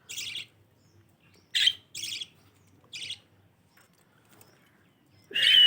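Pet budgerigars chirping: a handful of short, high chirps a second or so apart, then a louder call with a clear whistle-like tone near the end.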